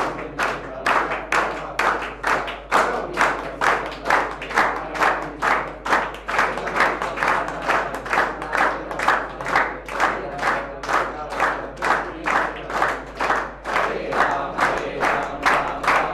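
A group of people clapping in unison, keeping a steady beat of about two and a half claps a second, as an aarti is performed.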